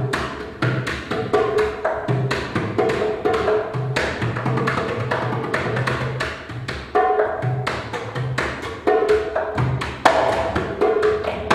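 Hand percussion played live on the lap: a quick, continuous run of sharp strikes with short ringing pitched notes and a recurring low bass note.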